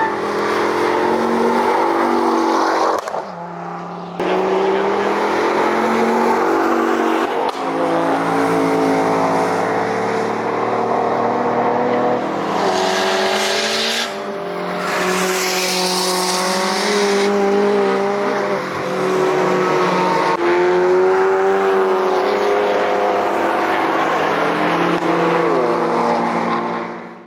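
Drift cars' engines running at high revs, the pitch swinging up and down as they slide, with tyres squealing in loud bursts about halfway through.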